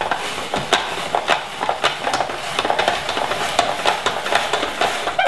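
Hand-crank plastic spiralizer turning a zucchini against its spaghetti blade: a continuous crunchy crackle with many small clicks as the zucchini flesh is cut into long strands.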